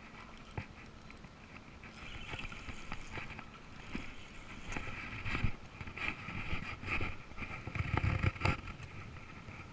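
Muffled rubbing and knocking of an action camera's waterproof housing against clothing as the wearer moves, growing busier and louder over the second half.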